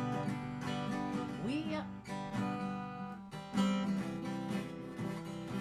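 Guitar chords strummed as a song's introduction, ringing out, with a fresh strum at the start and another about three and a half seconds in.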